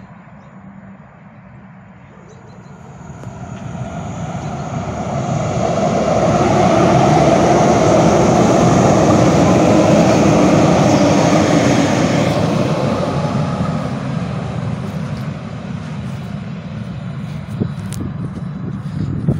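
A train passing by: its noise builds over a few seconds, stays loud for about six seconds, then fades away, with a few short crackles near the end.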